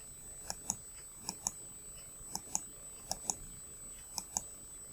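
Computer mouse button clicked five times, about once a second, each click a quick press-and-release pair, placing the points of a polygonal lasso selection. A steady high-pitched whine runs underneath.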